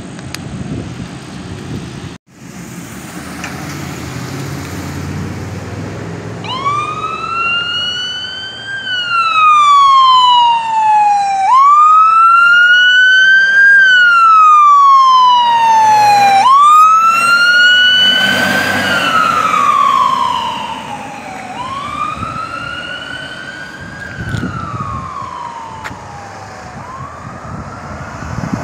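Emergency vehicle siren wailing on a red fire-department pickup truck responding with lights and siren. Each cycle rises quickly and falls slowly, about every five seconds, with a quick burst of rapid yelps midway. Passing car engine and tyre noise comes before the siren starts.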